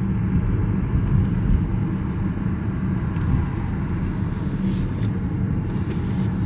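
Steady low rumble of city street traffic, with a faint thin high tone near the end.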